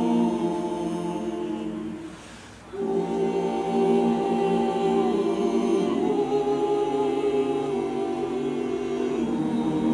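A choir singing long, held chords, with a brief break about two seconds in before the singing picks up again.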